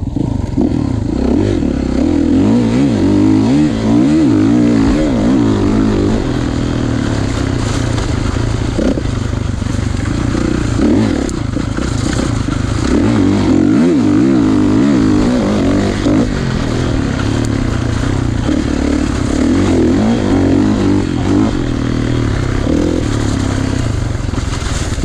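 2016 Kawasaki KX450's single-cylinder four-stroke dirt bike engine being ridden hard, its pitch rising and falling over and over with throttle and gear changes.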